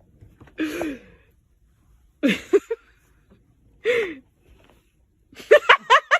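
Wheezy, gasping vocal sounds in four separate bursts, the last a quick run of about six short rising calls near the end.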